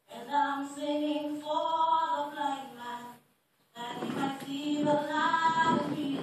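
A woman singing solo into a microphone: two sustained sung phrases with a brief silent pause about three seconds in.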